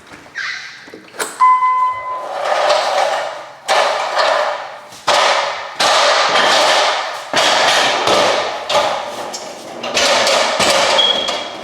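Hands working a ceiling-mounted plastic smoke detector off its base: a series of rough scraping and rubbing strokes with knocks, roughly one a second. Near the end comes a single short high chirp, the detector's low-battery warning.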